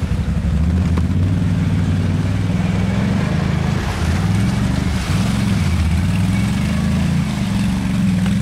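ATV engine revved up and down again and again as the quad ploughs through a muddy, flooded stream, with water splashing around it.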